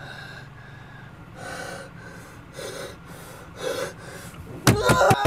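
A man breathing hard in short ragged gasps about a second apart, then breaking into a loud anguished cry near the end.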